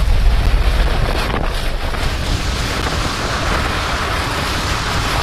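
Sound-effect layer of dense rushing noise. A heavy low rumble eases off over the first two seconds, after which a brighter steady hiss carries on.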